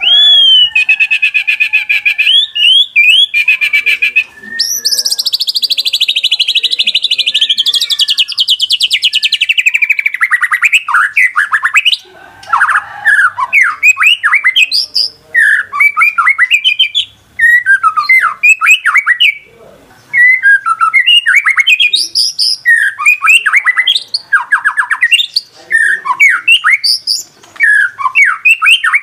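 White-rumped shama (murai batu) singing loud, agitated lure song of the kind used to provoke a caged shama into singing. It opens with a buzzy rapid trill, then a long fast trill sliding downward, then phrases of quick down-sweeping whistled notes broken by short pauses.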